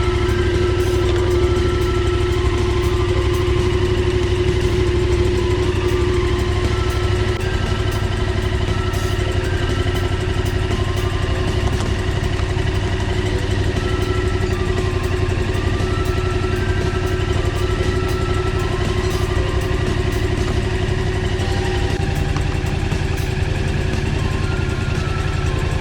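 Yamaha MT-07's 689 cc parallel-twin engine idling steadily, running on its newly replaced battery. The idle eases slightly about seven seconds in.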